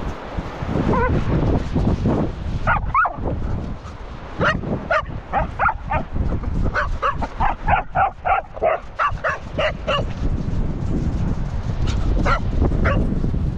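Cocker spaniel barking in a quick run of short high barks, about three a second, with a short gliding call just before and a few more barks near the end. Wind rumbles on the microphone throughout.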